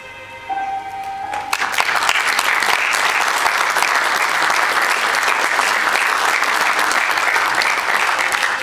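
Audience clapping, breaking out about a second and a half in and holding as steady applause, over the film's closing music.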